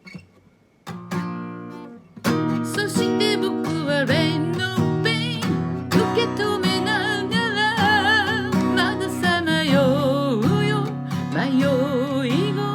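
Guitar with a voice singing over it. A single chord rings out about a second in, then steady strumming and the singing voice, with vibrato on held notes, come in together about two seconds in.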